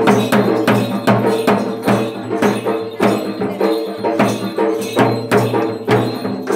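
Danda Nacha folk music: sharp percussion strokes at a steady beat of about three a second over several held, droning tones.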